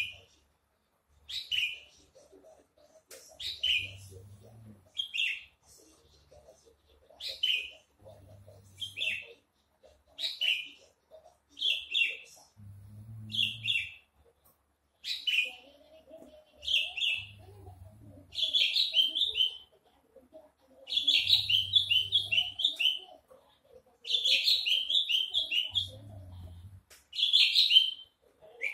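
Javan bush lark singing: short bright phrases repeated every second or two, lengthening into longer runs of quick rising notes in the second half.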